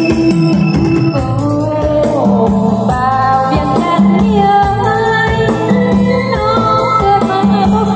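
Live Lao party band playing: a woman singing into a microphone over a Yamaha electronic keyboard, with a steady beat.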